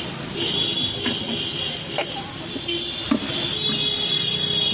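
Background music, with a few sharp knocks about a second apart.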